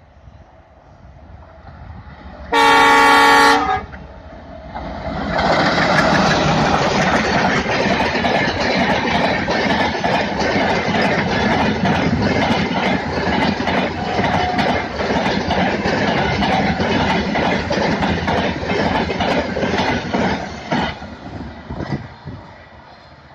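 An ALCo WDG-3A diesel locomotive sounds one horn blast about a second long as it approaches, then the engine and the train's wheels pass loudly with a steady clickety-clack over the rail joints, fading away near the end.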